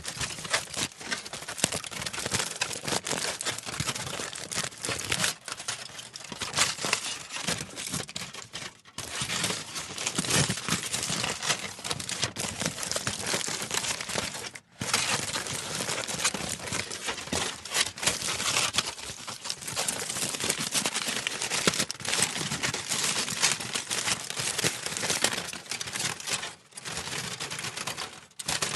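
Aluminium foil being handled and crinkled, a dense run of crackling with brief pauses about 9 and 15 seconds in.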